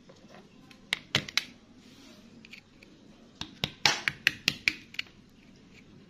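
Sharp clicking taps of a metal pick chipping at crusted rock around an embedded stone: three strikes about a second in, then a quicker run of about eight taps between three and a half and five seconds.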